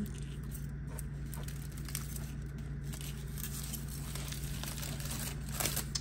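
Aluminium foil being peeled off a baking pan and crumpled: a few faint crinkles and rustles, more of them near the end, over a steady low hum.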